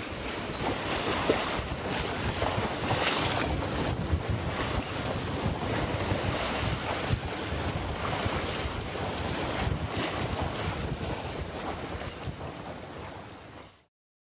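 Wind buffeting the microphone over the rush of sea water on a sailing yacht under way, an even noise that fades out and stops shortly before the end.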